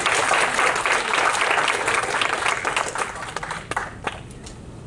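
Audience applauding, a dense patter of many hands clapping that dies away about three and a half seconds in, with a couple of last separate claps.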